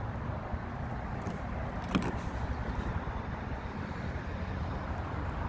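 Steady low vehicle rumble, with one sharp click about two seconds in.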